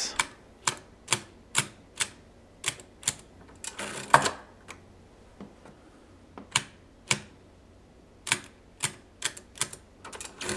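Keys of a 1940s Monroe L series mechanical adding machine being pressed one by one, a sharp click each, as a seven-digit number is entered. About four seconds in comes a longer clatter as the main crank is turned forward to add the number in. Then seven more key clicks, and the crank clatters again near the end.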